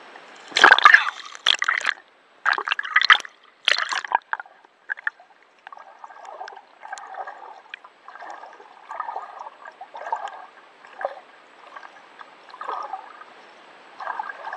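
Water sloshing and gurgling close to the microphone. Several loud splashy strokes come in the first four seconds, then softer gurgles follow about once a second.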